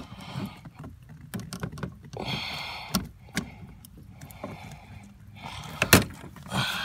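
Clicks, knocks and scraping from hands and the plastic-and-metal parts of a 2001 Toyota Corolla's outside door handle being worked loose inside the door, with a louder sharp knock about six seconds in.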